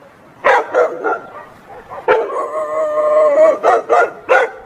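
A dog barking three times, then one long drawn-out howl, then three more barks.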